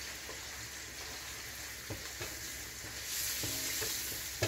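Chicken pieces sizzling as they fry in butter and oil in a pan, a steady hiss that grows a little louder about three seconds in. Near the end a wooden spoon stirs the chicken, with a few light knocks against the pan.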